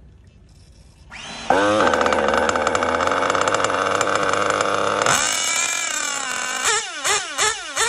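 Nitro-fuelled Picco engine of a Mugen Seiki MRX-6 RC car comes in suddenly about a second and a half in and holds a steady high rev for about three and a half seconds. It then drops away and is revved in quick throttle blips, two or three a second.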